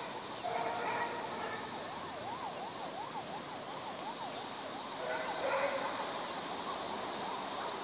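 Emergency vehicle siren in a fast yelp, its pitch sweeping up and down about three or four times a second.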